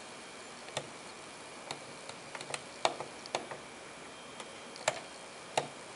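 Irregular plastic clicks from the buttons of a Soundesign 3620WAL clock radio being pressed to set the alarm, about a dozen short clicks at uneven intervals over a faint hiss.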